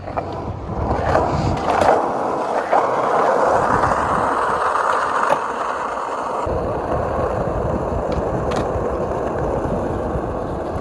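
Skateboard rolling, its wheels making a steady rolling noise, with a few sharp clacks in the first half.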